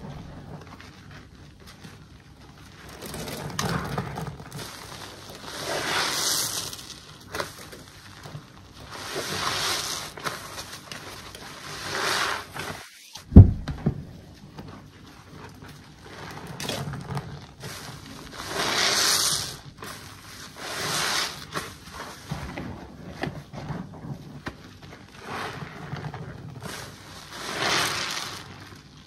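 Foam-laden body sponge squeezed and kneaded by hand in a basin of soapy water: wet squelching of the sponge and suds that swells every two to three seconds. One sharp thump about thirteen seconds in.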